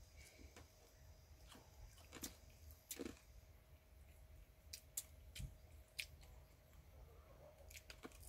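Near silence: faint chewing and scattered small clicks and taps from people eating, over a low steady rumble.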